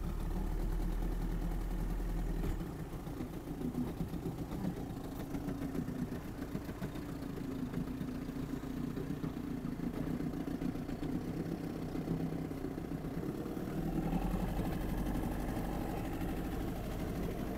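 Vintage boat's engine idling at low speed while the boat manoeuvres. Its deep low rumble eases a couple of seconds in and comes back near the end.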